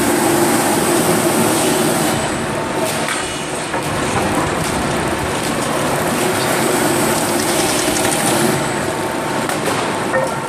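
Rotary veneer peeling lathe running: a loud, steady mechanical din with some faint steady whining tones.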